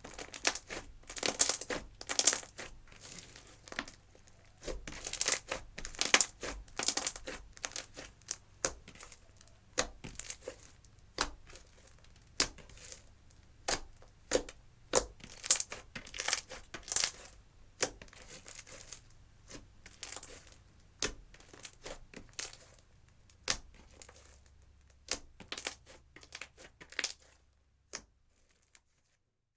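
Clear slime mixed with eyeshadow being squeezed, stretched and poked by hand, giving quick irregular crackles and pops that stop near the end.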